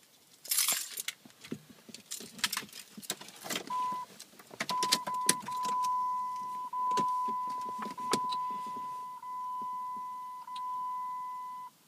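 Keys jangling as they go into the Jeep Grand Cherokee's ignition and are turned, with small knocks from handling. About four seconds in, the vehicle's electronic warning chime starts: a steady, high single tone held for about seven seconds, with slight dips every second or so, that cuts off suddenly near the end.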